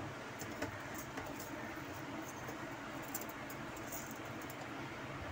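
Faint scratching and small clicks of stiff copper wire strands being twisted by hand around a relay pin on a circuit board, over a steady low hum.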